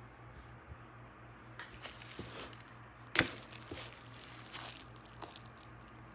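Rustling and clicking handling noise, with one sharp click about three seconds in, over a faint steady low hum.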